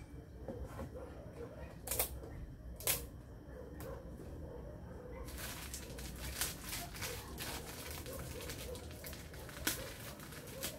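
Light clicks and clatter of kitchen utensils and containers being handled, over a steady low hum. There are sharp single clicks about two and three seconds in, and a run of quicker clicking from about halfway.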